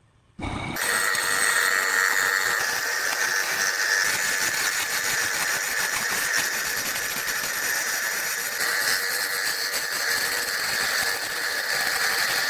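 A woodworking power tool running steadily, starting abruptly about half a second in, a constant hiss with a steady tone running through it.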